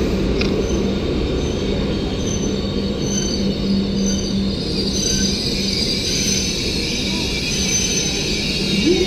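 A train running on the rails with a steady low rumble, and a high wheel squeal that grows louder about halfway through.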